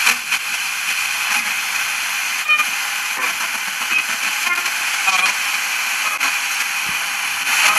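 Static hiss from a 12-band portable radio receiver's speaker as its FM tuning wheel is turned by hand between stations, with a few brief snatches of sound breaking through the noise.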